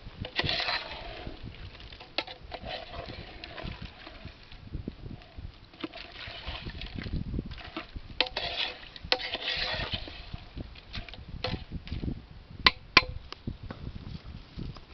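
A long ladle stirring crab pieces through a pot of crab curry, in bursts of wet sloshing and scraping, with scattered clicks and two sharp knocks near the end.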